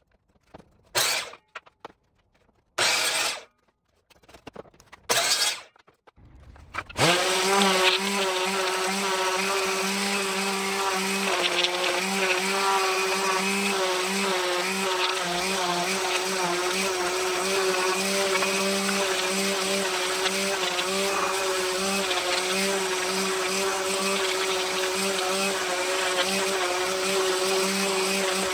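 A few brief bursts of a miter saw cutting pallet-wood strips, with silent gaps between them. About seven seconds in, a DeWalt random orbit sander starts and runs steadily with a humming whine as it sands the wood strips.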